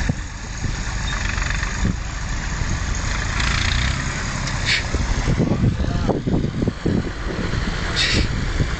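Massey Ferguson 230 tractor engine running steadily, with a couple of brief hisses around the middle and near the end.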